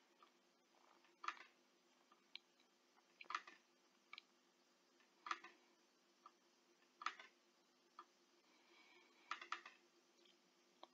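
Faint computer mouse clicks, sparse and about a second apart, with a quick double-click near the end, over a faint steady hum.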